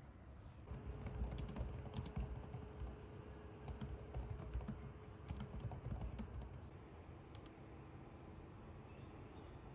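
Typing on a laptop keyboard: quick runs of key clicks that thin out to a few scattered taps after about six or seven seconds, over a faint steady hum.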